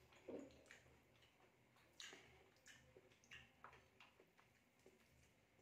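Faint eating sounds: irregular soft clicks and smacks of chewing and picking at roast chicken, with a sharper click about two seconds in.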